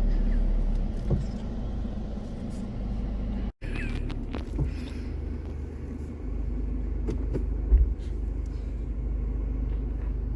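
Car engine running with a steady low rumble, heard from inside the car. The sound cuts out for an instant about a third of the way in, and a single short knock comes near the end.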